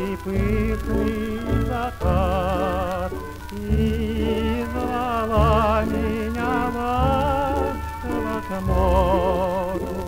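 A jazz orchestra waltz played back from an old record on a turntable. Melody lines with a wide vibrato run over bass notes that come back in a regular waltz pulse.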